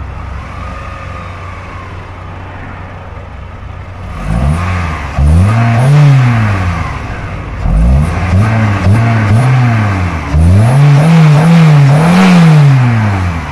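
Mitsubishi Galant's 16-valve four-cylinder engine idling, then revved by hand at the throttle body from about four seconds in: several blips, each rising and falling in pitch. This tests the throttle response after the throttle body has been cleaned.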